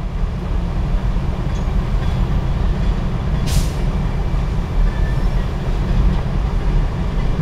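Freight train of CSX hopper cars rolling past over a grade crossing: a steady low rumble and clatter of the wheels, heard from inside a car, with a short hiss about three and a half seconds in.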